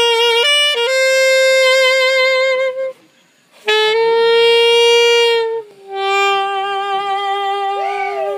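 Alto saxophone playing a slow melody in long held notes, with a short break about three seconds in and a move to a lower held note near the end.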